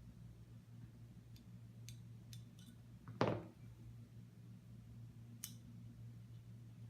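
Small parts of a Glock pistol being handled: a few light clicks, then one sharp clack about three seconds in, and another click near the end.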